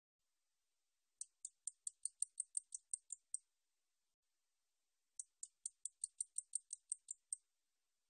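Song of the 날베짱이 katydid: two runs of about a dozen sharp, high-pitched ticks, five or six a second. Each run lasts about two seconds, and the second starts about five seconds in.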